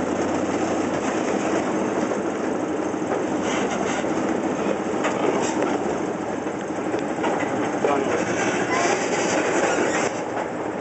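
Open passenger car of a small park train running along the track: a steady noise of wheels on rails and the car rattling, with a few scattered clicks from the rail joints.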